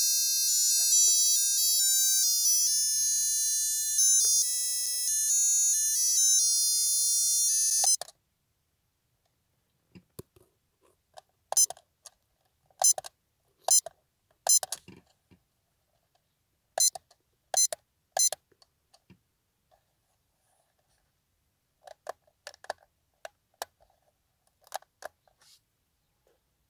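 Piezo melody of a dashboard digital clock playing in high, stepped electronic tones, cutting off abruptly about eight seconds in. Then a scattered series of short, high beeps, with small clicks, as the clock's buttons are pressed to set it.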